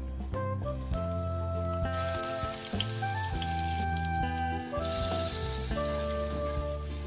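Butter sizzling as it melts and foams in hot oil in a non-stick frying pan, starting about two seconds in and stopping about five seconds in, over instrumental background music.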